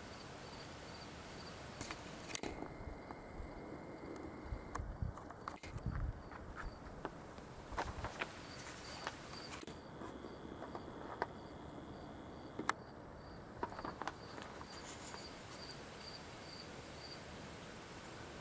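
Olympia SM9 portable manual typewriter being handled: scattered sharp clicks and knocks at irregular intervals, with a few dull thuds about five seconds in, not the dense rattle of steady typing.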